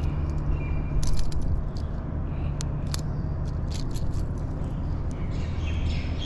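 Sharp metallic clicks and rattles of pliers and a small hard-bait lure's hooks as the lure is worked free from a caught fish, over a steady low drone.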